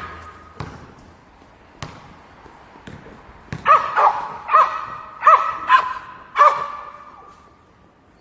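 Basketball court sounds: a few sharp ball bounces, then a quick run of about six short, high sneaker squeaks on the hardwood floor in the second half, each ringing on briefly.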